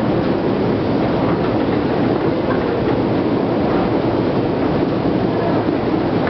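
Long metro escalator running: a loud, steady mechanical rumble from its machinery and moving steps, with no break or change.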